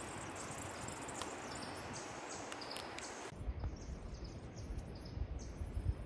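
Forest ambience: repeated short, high-pitched chirps over a steady hiss. About three seconds in, the sound changes abruptly: the hiss drops away and an uneven low rumble comes in under the chirps.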